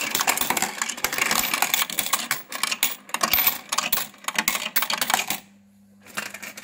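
Electric Euro coin sorter-counter running, coins clattering rapidly through the mechanism and clinking into the denomination bins as a dense run of small clicks. About five and a half seconds in the clicking pauses, leaving only a low steady hum, then a few more clicks come.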